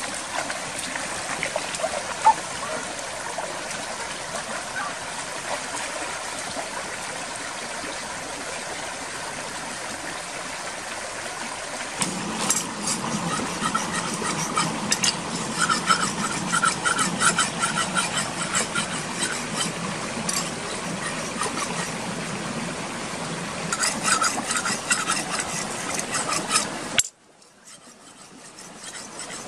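Shallow rocky stream flowing, with splashes from people wading through it. About twelve seconds in the sound changes to close scraping and a rapid crackle of clicks from hands working at green coconuts beside the water, and it drops much quieter near the end.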